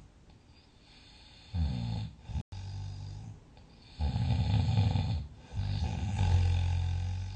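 A sleeping person snoring loudly: a short snore about one and a half seconds in, then two longer, heavier snores from about four seconds in, with quieter breathing between. The sound cuts out for an instant between the first and second snores.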